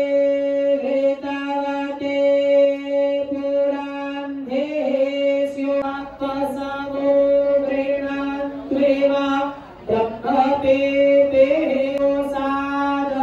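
A man singing a ritual chant through a microphone, holding long steady notes with brief breaks between phrases.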